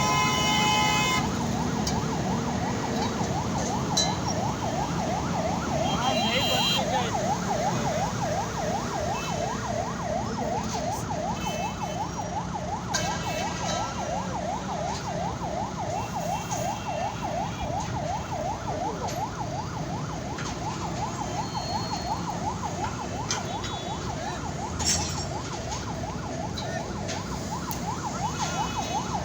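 A warbling warning alarm, its pitch rising and falling rapidly and evenly without a break, over the low rumble of heavy engines. A horn sounds briefly at the very start.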